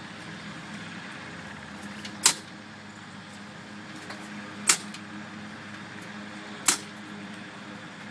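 Kinner B-5 five-cylinder radial being turned over by hand at the wooden propeller, engine not firing, as it is pulled through before a cold start. Three sharp clicks come about two seconds apart as the blades are swung through.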